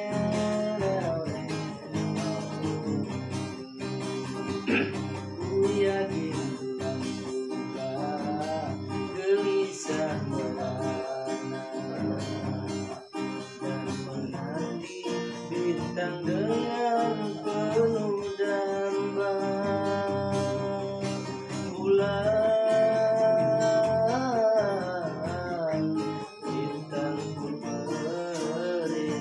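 Acoustic guitar strummed steadily with a man singing along, holding long notes that waver in pitch.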